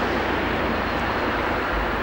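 Diesel train running past with a steady rolling rumble, easing off slightly.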